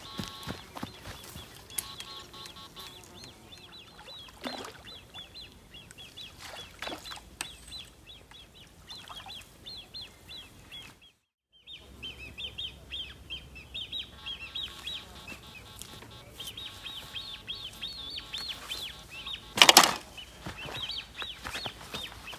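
Small birds chirping busily and continuously, with one loud sudden noise about twenty seconds in.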